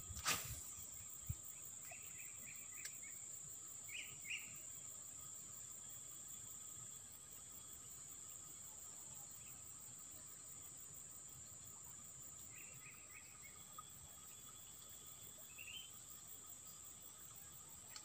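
Steady high-pitched drone of insects, with a few short bursts of bird chirps scattered through it. A single quick swish of a fishing rod being cast just after the start.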